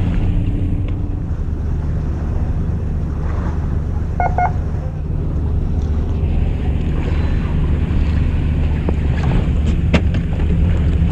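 Boat engine running with a steady low drone, with wind on the microphone and a couple of sharp clicks near the end.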